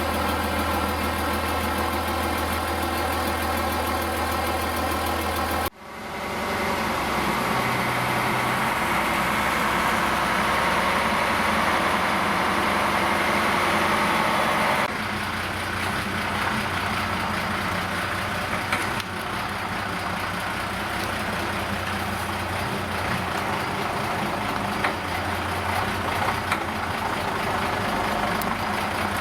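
Engine of a work machine with a hydraulic arm, just started after standing for months, running steadily at idle. The sound changes abruptly twice, about six and fifteen seconds in, with a louder, noisier stretch in between.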